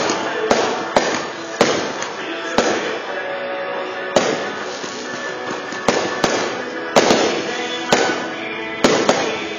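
Aerial firework shells bursting with sharp bangs, about a dozen at uneven intervals, several close together around seven seconds in. Music plays steadily underneath.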